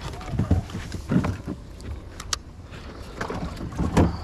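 Irregular dull knocks and thumps on a small fishing boat while an angler reels in and lifts a hooked sea bass, with two sharp clicks about two seconds in and the loudest thump near the end.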